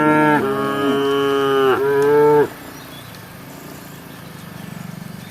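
Cow mooing: one long, loud call that shifts pitch twice and cuts off about two and a half seconds in.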